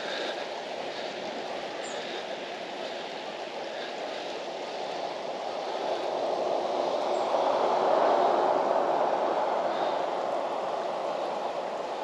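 Steady rushing of a muddy river's flowing water, swelling louder for a few seconds around the middle.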